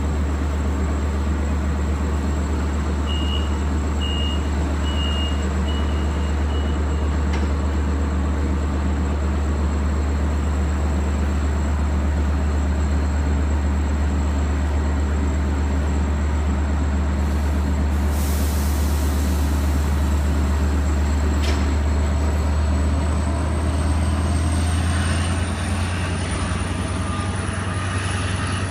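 LIRR diesel train's locomotive running with a steady deep drone. A short series of high beeps comes a few seconds in, and a brief hiss of air about two-thirds of the way through. Near the end the drone changes and a faint high whine rises slightly.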